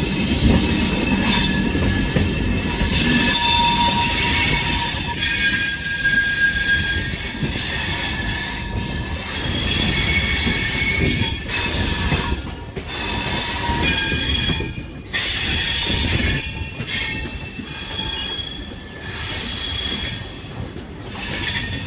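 Kanpur Shatabdi Express train running over points, its wheels squealing against the rails in several high tones that come and go above a low rumble of the running gear.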